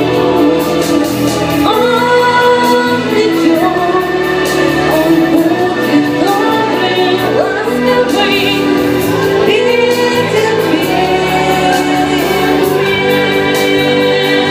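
A song with singing over a sustained instrumental backing.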